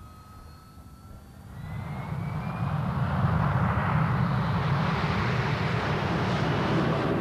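Hawker Harrier jet flying in low, its engine noise swelling from a faint rising whine to a loud, steady rush about three seconds in.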